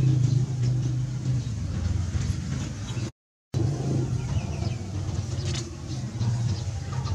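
A steady low engine hum that drops out for a moment just under halfway through, with faint high chirps over it.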